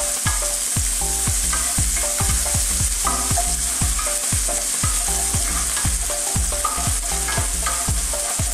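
Chopped onion and garlic sizzling in hot corn oil in a nonstick sauté pan, stirred and pushed around with a spatula. Under the steady sizzle runs a regular pattern of low thumps, about three a second, with short held tones.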